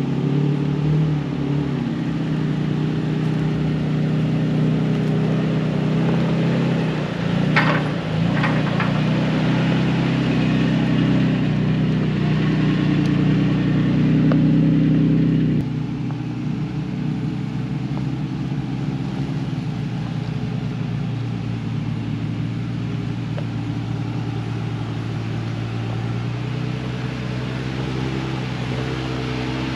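Engines of off-road 4x4 trucks crawling slowly up a rutted dirt trail, a steady low drone. There are a few sharp knocks about eight seconds in, and the engine sound drops and changes abruptly about halfway through as another vehicle takes over.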